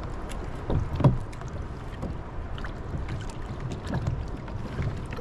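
Water lapping and slapping against plastic kayak hulls, with a couple of louder slaps about a second in, small knocks, and wind on the microphone.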